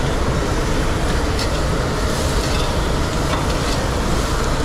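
Steady commercial-kitchen roar with food sizzling on the grill, and a few light clinks of utensils about a second and a half in and again past three seconds.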